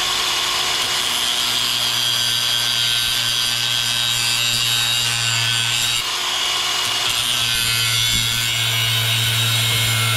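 Milwaukee angle grinder with a cutoff wheel running under load, cutting into a metal hose fitting clamped in a vise. The grinding is steady, with a brief dip about six seconds in.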